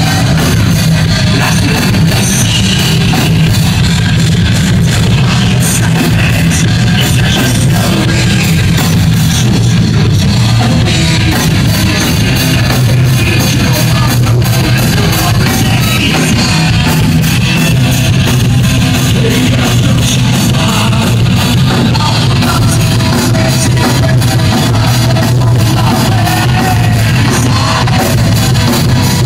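Heavy metal band playing live: distorted electric guitars, bass and fast, steady drumming, with a singer's vocals on top, loud and unbroken.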